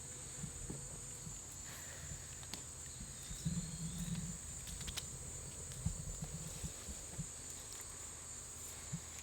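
Insects, probably crickets, keep up a steady high-pitched drone, with scattered light clicks, knocks and rustles of handling close by.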